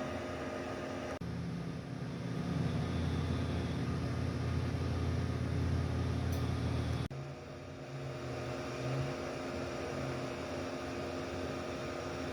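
Steady mechanical hum with several steady tones and a low rumble that swells for a few seconds in the middle. The sound changes abruptly about a second in and again about seven seconds in.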